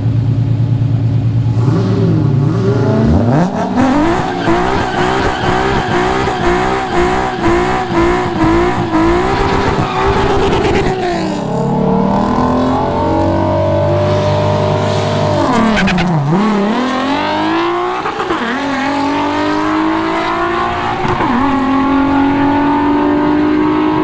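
Nissan 350Z's V6 idling, then revved hard with the rear tyres spinning in a burnout, the engine pitch wavering up and down. After a short drop it launches and accelerates hard down the drag strip, the pitch climbing and falling back sharply at three gear changes.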